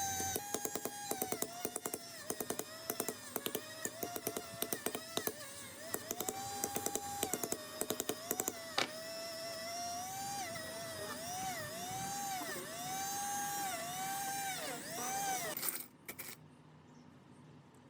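Small high-speed power tool motor whining, its pitch sagging again and again as it is pressed into the work, with rapid clicking and rattling in the first half; it cuts off near the end.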